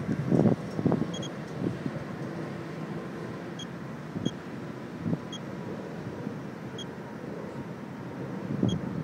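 RADEX Geiger-counter dosimeter chirping at random intervals, about eight short high beeps in nine seconds, each one a counted radiation pulse at the low rate of a 0.10 µSv/h ground reading. Under it runs a steady low outdoor rumble that swells at the start and near the end.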